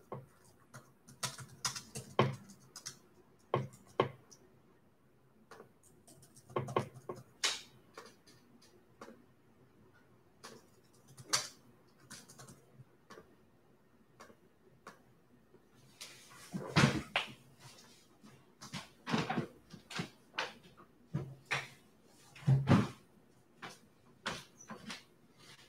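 Scattered light clicks and knocks of small objects being handled on a desk, irregular and a few seconds apart, with a denser, louder run of knocks past the middle and one more near the end.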